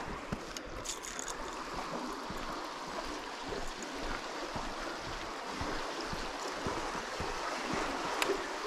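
Steady rushing of river current flowing and swirling past a concrete bank, with a few short clicks in the first second and one near the end.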